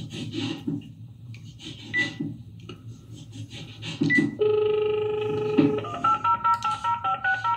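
A phone line's steady dial tone for about a second, then a rapid run of keypad touch tones (DTMF) as a number is dialled, roughly eight a second. Before it, faint handling sounds and two short high beeps.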